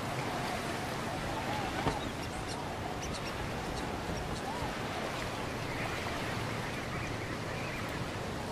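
Waterbirds calling: short, repeated calls that rise and fall in pitch, over a steady rushing background noise, with one sharp click about two seconds in.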